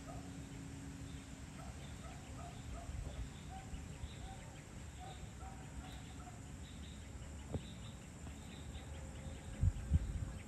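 Outdoor dusk ambience: series of short, evenly repeated chirping calls from birds and insects over a steady low rumble. A couple of low thumps come near the end.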